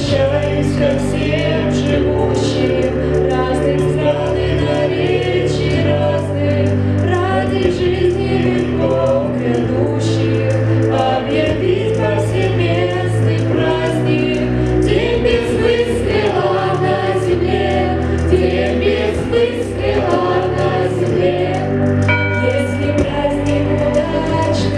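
A choir singing a song to a steady instrumental backing.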